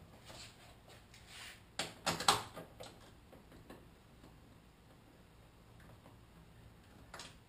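Small metallic clicks and clatters of a ratchet and a 10 mm bolt as the grille bolts on a Ford Super Duty are taken out. A few light clicks, then a loud short cluster of knocks about two seconds in, and scattered clicks later.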